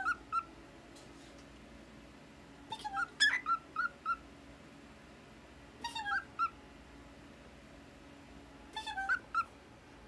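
Lutino cockatiel chirping in short bouts of quick, clipped notes, four bouts about three seconds apart.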